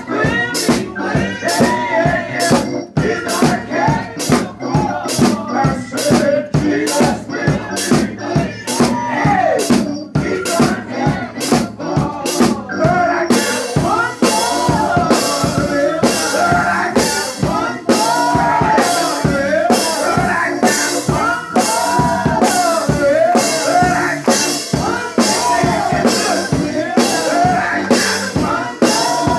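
Live gospel music: a man singing into a microphone over a drum kit keeping a steady beat of about two hits a second. About halfway through, the cymbals turn brighter and fuller.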